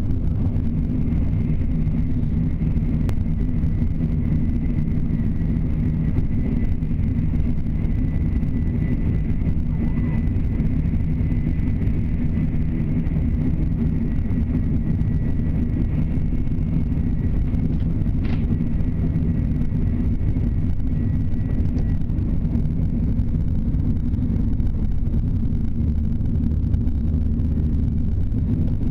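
Steady rumble and rush of a Shinkansen bullet train running at speed, heard inside the passenger cabin. A faint, steady high whine sits over it for most of the first two-thirds, and there is a single sharp click about 18 seconds in.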